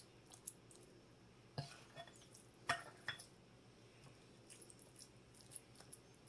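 Faint, soft taps, clicks and squishes of a scoop packing raw ground beef mixture into bell peppers on a countertop, the loudest tap about two and a half seconds in.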